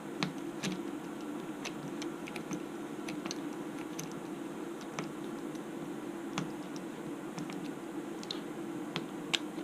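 Scattered light clicks and taps of small screws and a hand tool as the tail stabilizer clamp of an RC helicopter is tightened, over a faint steady hum.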